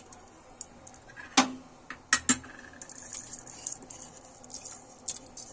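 A few sharp knocks of a kitchen utensil against a metal pressure cooker: one about a second and a half in, two close together just after two seconds, and a lighter one near the end.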